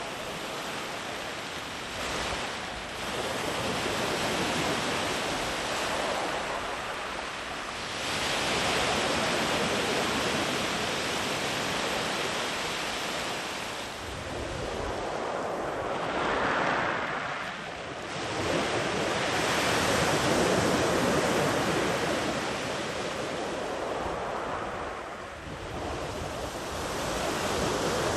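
Sea waves breaking and washing up a sand beach, one after another, the surf swelling and ebbing every few seconds, with some wind on the microphone.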